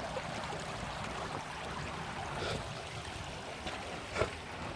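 Creek water flowing with a steady rushing noise, and one brief sharp sound near the end.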